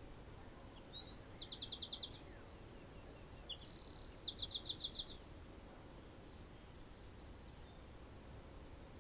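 A bird singing a song of fast, high trills, from about a second in to about five seconds in, ending on a short high falling note. A fainter, short phrase follows near the end over a steady outdoor background hiss.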